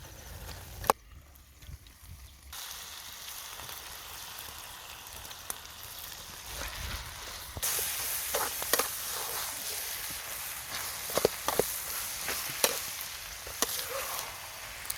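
Food sizzling in a hot pan. The hiss grows louder about halfway through, with a sharp click about a second in and scattered short knocks of a utensil against the pan later on.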